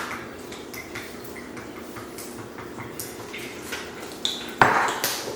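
Kitchen dishes and utensils clinking lightly as they are handled, with one louder clatter about four and a half seconds in.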